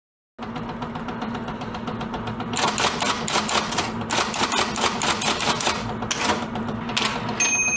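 Typewriter keys clacking in quick runs, broken by short pauses, then a single bell ding near the end, over a steady low hum.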